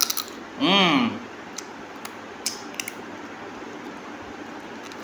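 A man chewing a mouthful of rice and curry eaten by hand, with a short hummed voice sound about a second in, then scattered soft mouth clicks and smacks.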